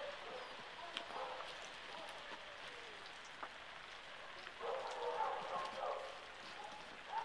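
Steady rain falling: a light, even hiss with a few faint ticks of drops.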